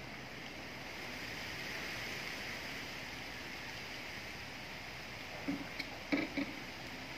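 Wind rustling the leaves of trees as a steady hiss that swells slightly about two seconds in. A few short, soft knocks come near the end.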